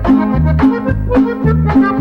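Norteño band playing an instrumental break: accordion melody over a bass line in a steady two-beat rhythm.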